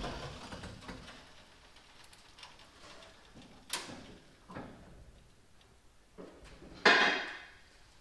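A 1977 Chevy C10 pickup being set down onto wooden cribbing under its wheels: quiet, scattered clunks and knocks, a sharp click about four seconds in, and one louder clank that rings briefly about seven seconds in.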